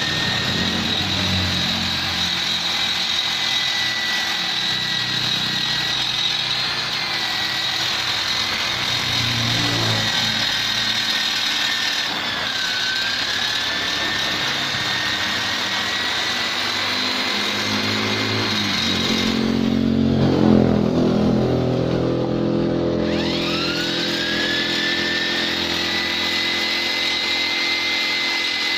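Electric die grinder with a carbide burr bit whining at high speed as it grinds the port openings of a Vespa two-stroke cylinder; its pitch sags briefly under load. About twenty seconds in it stops with a short clatter, then spins back up with a rising whine.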